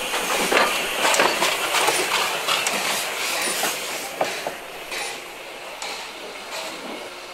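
Railway wheels clicking and clattering over rail joints and points at low speed, loudest in the first two seconds and then easing off. A brief high wheel squeal comes about halfway through.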